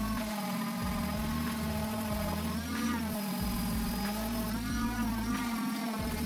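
Background music: wavering, gliding pitched tones over low bass notes that start and stop.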